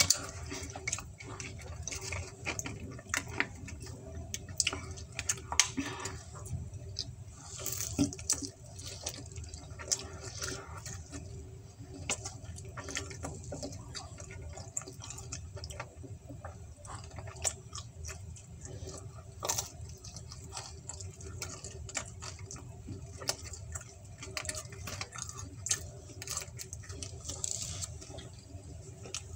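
A person eating pepperoni pizza close to the microphone: chewing and lip-smacking in short, irregular clicks over a low steady hum.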